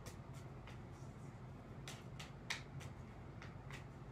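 Tarot deck shuffled by hand: a string of crisp card snaps, about three a second, with a pause of about a second after the first few, over a low steady hum.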